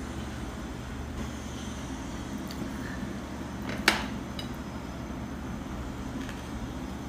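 Tableware sounds over a steady low hum: one sharp knock about four seconds in, likely the drinking glass being set down on the table, with a few faint clicks around it.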